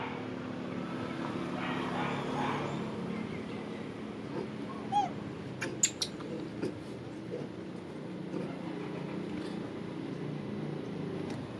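A short high squeak from a baby macaque about five seconds in, followed by a quick cluster of sharp clicks, over a steady low background hum.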